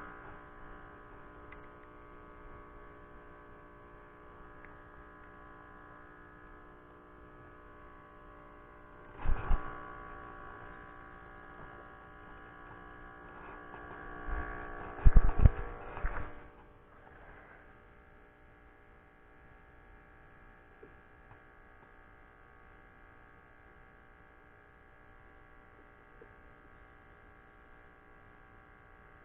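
A steady hum made of many even tones, broken by a loud knock about nine seconds in and a cluster of knocks around fifteen to sixteen seconds.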